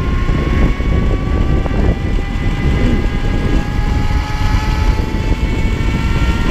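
Zero MX electric motorcycle's motor and chain drive whining under power while riding, several high tones rising slowly in pitch together as the bike gathers speed. Heavy wind rumble on the microphone runs underneath.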